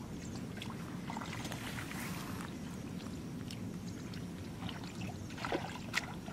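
Hands sloshing through shallow muddy water while groping for fish, with a brief swish about two seconds in and a few short splashes a little after five seconds, over a steady low rumble.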